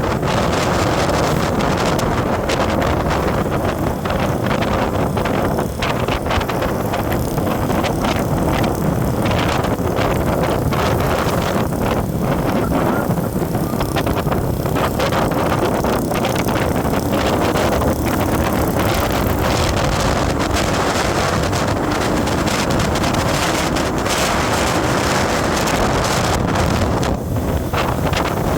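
Wind rushing over the microphone of a moving road vehicle, a loud steady rush with vehicle noise beneath it.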